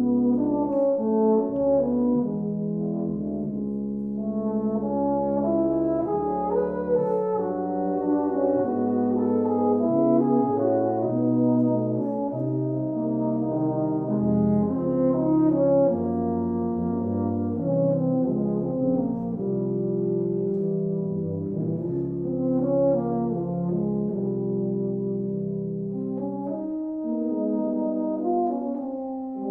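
Tuba-euphonium quartet, two euphoniums and two tubas, playing brass chamber music together in several parts at once, with held notes changing every second or two. The playing eases off slightly near the end.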